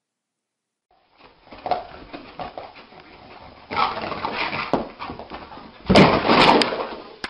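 A small dog's vocal noises come in a string of irregular bursts after about a second of silence, and are loudest near the end.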